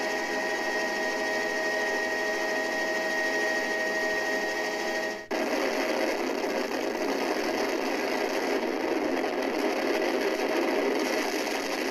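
Helicopter in flight: a steady turbine whine over rotor and engine noise, heard from inside the open-door cabin. About five seconds in it changes suddenly to an even noise without the whine.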